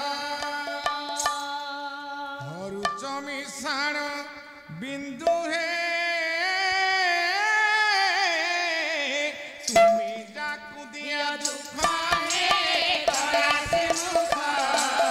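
A man singing a slow devotional pala melody in long, wavering held notes. About twelve seconds in, drums and other percussion come in and the music grows busier.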